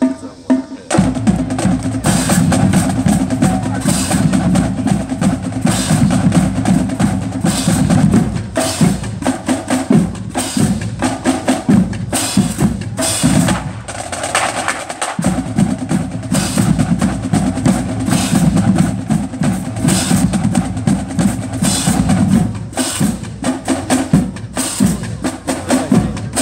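Marching band drum line playing a fast percussion piece: dense, rapid drum strokes over a heavy low drum pulse. The low drums drop out for a moment about fifteen seconds in, then come back.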